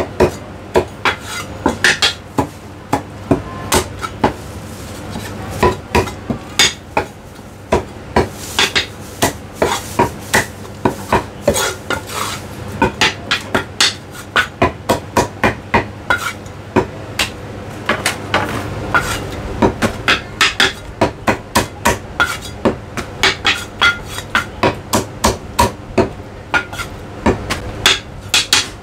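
Chinese cleaver chopping a cooked chicken on a round end-grain wooden chopping block: sharp chops, several a second in quick irregular runs.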